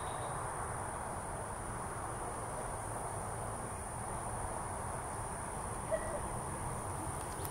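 Insects trilling in one steady, continuous high-pitched tone over a faint even background hiss, with a single faint click about six seconds in.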